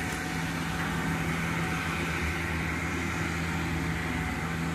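Steady motor hum with a rushing noise, even and unchanging throughout.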